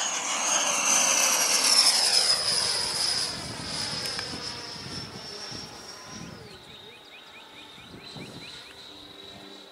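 RC electric ducted-fan jet (JF 110 fan on an 840kv HET motor) whining at high pitch as it flies past. The sound is loudest about two seconds in and fades as the jet climbs away, with the whine sliding down in pitch. About six seconds in, the pitch steps down.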